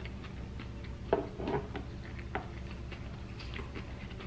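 Close-miked chewing of a cheese-covered tater tot, with small wet mouth clicks. A few louder mouth smacks come between about one and two and a half seconds in.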